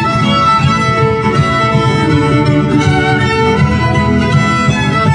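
Live folk band playing an instrumental tune, with a fiddle prominent over the accompaniment.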